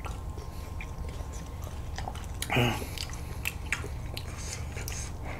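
Close-up mouth sounds of people eating frozen red bean ice cream bars: wet lip smacks, sucking and small bites and clicks scattered throughout. About halfway through, a brief vocal sound is the loudest thing.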